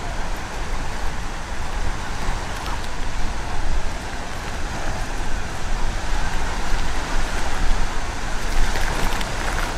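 Steady rush of surf, with wind rumbling unevenly on the microphone.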